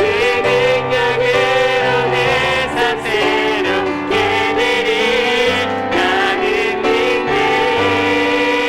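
Church worship-team music: a keyboard playing sustained chords and bass notes under a wavering sung melody line.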